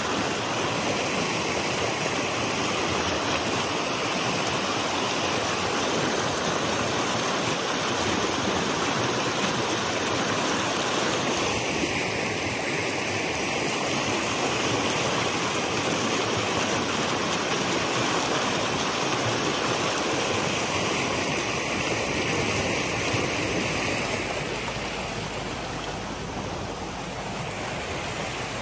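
Fast mountain creek rushing over rocks in a steady, full rush of whitewater, a little quieter near the end.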